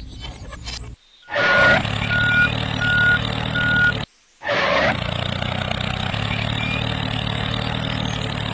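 Tractor engine running, a sound effect dubbed over a toy tractor. It cuts off abruptly twice, and four short, evenly spaced beeps sound about a second and a half in.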